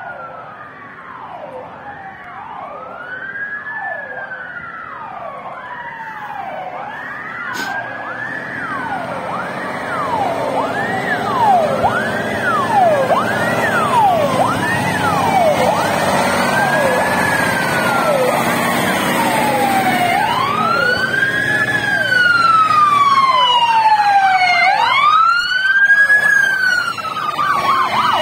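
Fire engine sirens on an emergency run, several of them overlapping. They rise and fall, sweeping quickly at first and then in slower wails. A second, higher-pitched siren joins about three quarters of the way in, and the sirens grow steadily louder as the trucks approach.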